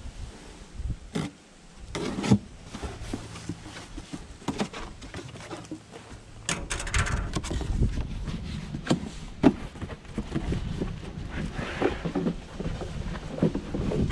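Handling noises as a truck air filter element is swapped in its housing: irregular knocks and clunks of the filter and housing parts, with some rustling between them. The sharpest knocks come about two seconds in and past halfway.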